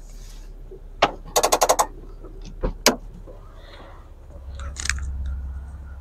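Car seatbelt unbuckled with a sharp click about a second in, followed by a quick rattle of clicks as the belt reels in and another sharp click. A low engine hum grows louder near the end as the driver climbs out.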